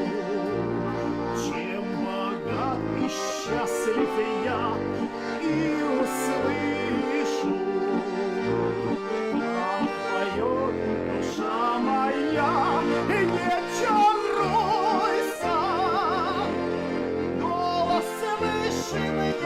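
Music: an instrumental stretch of a song, a wavering melody with vibrato over held chords and a pulsing bass line.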